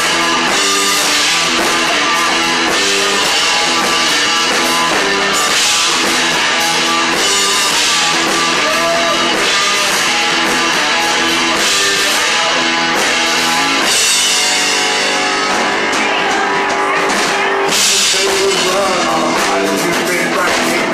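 Live rock band playing loud: electric guitar and bass over a drum kit. The repeating riff gives way to a looser passage about two-thirds of the way through, then returns.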